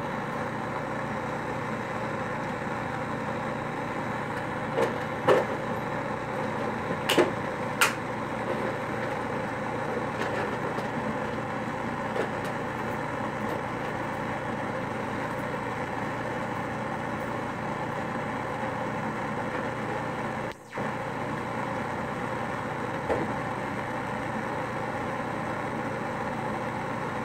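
Handheld gas torch on a yellow fuel cylinder burning with a steady roar while a glass rod is heated in its flame. A few sharp clicks come about five to eight seconds in, and the roar drops out for a split second about twenty seconds in.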